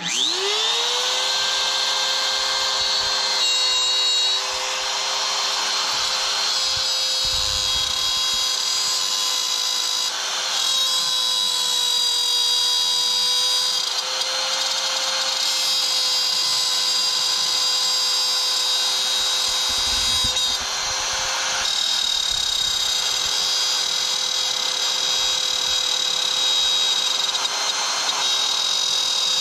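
Wood router switched on and spinning up to full speed within about a second, then running steadily with a high whine as it routes a bow-tie inlay recess in wood through a template. Its pitch and loudness shift slightly now and then as the bit cuts.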